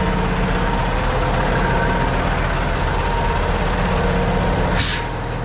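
Semi truck's diesel engine idling steadily, with a short hiss near the end.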